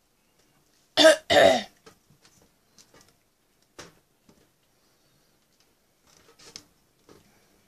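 A person coughs twice in quick succession about a second in, followed by a few faint knocks.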